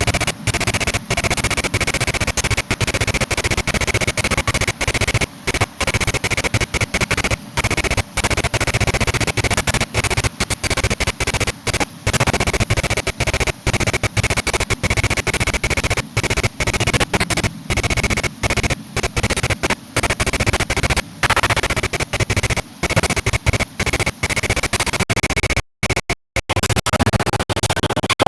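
Loud music with turntable-style scratching, broken by many brief, abrupt cut-outs that give it a stuttering feel.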